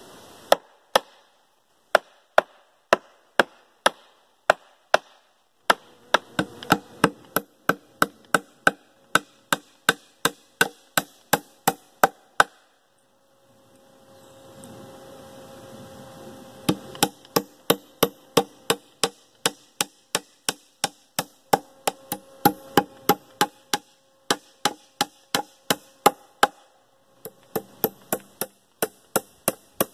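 Small hammer tapping nails into the finger-jointed corners of a wooden Langstroth medium super hive box: sharp taps in quick runs of about two to three a second, with short breaks between runs.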